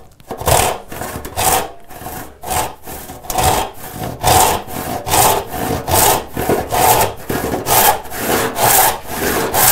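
Hand saw ripping down the edge of a wooden board in regular back-and-forth strokes, about two a second. The resaw cut is being started along a marked line.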